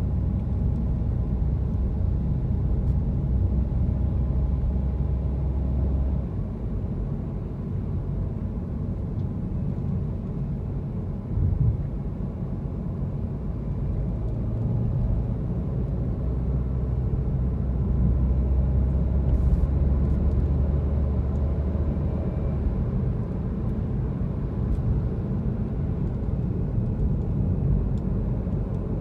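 A car being driven, a steady low rumble of engine and road noise. The low drone drops away and comes back a couple of times, and there is one brief thump partway through.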